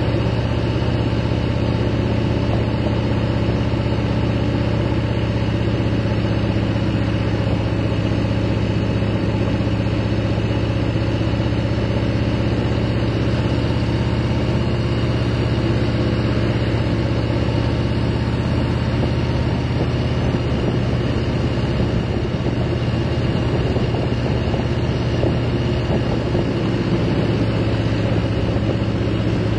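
Cruiser motorcycle's engine running at a steady cruising speed, heard from the handlebars as an even low drone over road noise.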